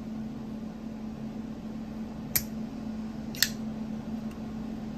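Two sharp metallic clicks about a second apart from a Chaves Scapegoat folding knife as its blade is worked open and shut, the action being tested after pivot lube went on because it felt gritty and tight. A steady low hum runs underneath.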